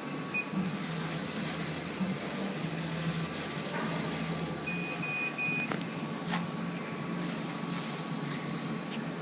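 CO2 laser cutting machine running, with a steady fan hiss and a low motor hum that changes pitch in steps as the head moves. A short high beep sounds near the start, and three quick beeps come about five seconds in.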